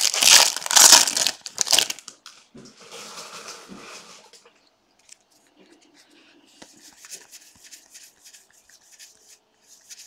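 Foil wrapper of a Bowman Jumbo baseball card pack torn open and crumpled, loud for the first two seconds, then softer crinkling. After that, faint light rustles and ticks as the stack of cards is handled.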